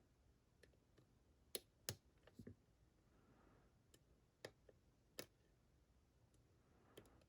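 Faint, irregular clicks of a lock pick working the pins inside a challenge lock being picked, with a few sharper clicks about one and a half to two seconds in and again about five seconds in, as the pins are lifted and set.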